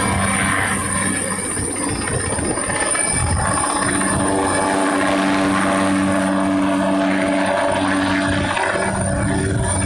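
Helicopter running steadily overhead, a loud continuous drone with a steady high whine above it.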